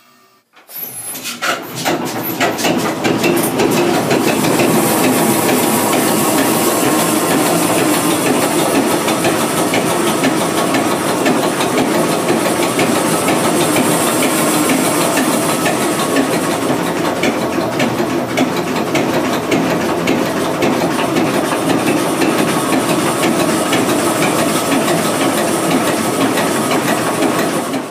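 Anglo Belgian Corporation 3MDX three-cylinder marine diesel engine starting up about a second in and building within two seconds to a loud, steady run with a dense clatter.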